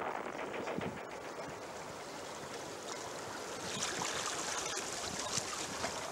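Calm water lapping gently: a soft, steady wash with small splashes, growing a little brighter about four seconds in.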